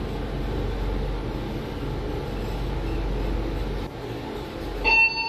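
Fujitec passenger elevator car travelling upward: a steady low hum and rumble of the ride that eases off about four seconds in as the car slows. A chime with several clear tones rings near the end as the car arrives.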